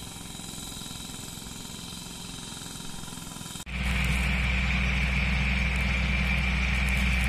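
Quiet outdoor ambience with faint steady high tones, then, from about three and a half seconds in, a louder steady engine drone from a tractor working a rice field with a rotary tiller.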